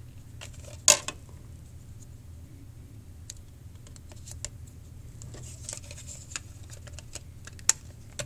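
Plastic clicks and light scraping as the back cover of an HTC EVO 3D smartphone is pried off and handled, with one sharp snap about a second in, to get at the battery and power the phone down by hand. A low steady hum lies underneath.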